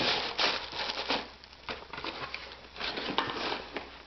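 Tissue paper crinkling and a cardboard shoebox being handled as a running shoe is packed back in and the lid is closed: a run of rustling bursts with a few sharp taps.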